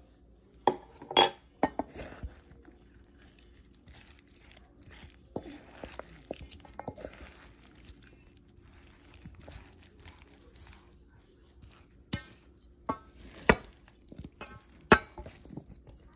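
A spoon stirring potato salad in a stainless steel mixing bowl: wet stirring and scraping, with sharp clinks of the spoon against the bowl's side, a couple about a second in and the loudest few near the end.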